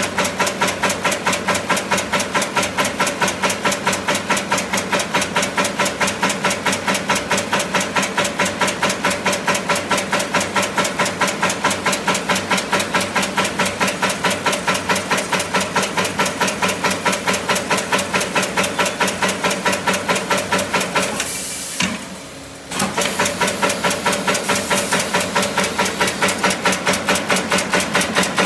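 Automatic fan guard spot welding machine running in a fast, even rhythm of about four strokes a second, its welding head cycling as it works. It pauses briefly about 22 seconds in, then picks up again.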